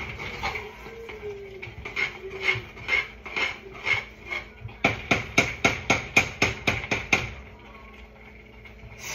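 A utensil knocking against a cooking pot as it is stirred: a run of sharp clanks with a ringing note, about two a second at first, then faster, about three a second, from around the middle, stopping a couple of seconds before the end.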